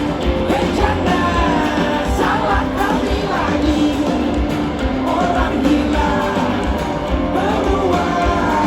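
Live band playing a rock-pop song with a lead vocal over a steady beat, loud and continuous as heard through the festival PA.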